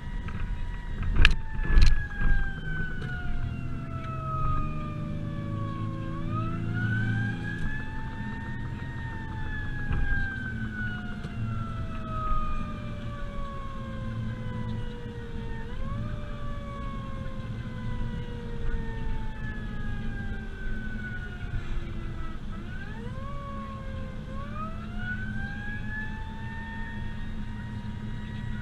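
Fire truck siren wailing over engine and road noise, its pitch sliding slowly down and climbing back quickly, over and over. Two sharp knocks sound about a second in.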